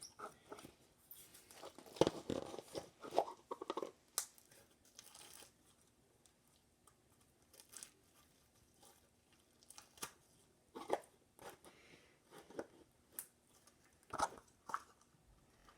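Slime mixed with foam beads being squished and stretched by hand, giving off irregular crackles and pops with quiet gaps between.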